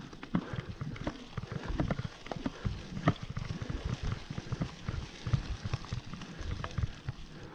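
Mountain bike rolling down a bumpy dirt trail covered in dry leaves: a dense run of irregular knocks and rattles from the bike over the bumps, with the tyres rolling over the leaves.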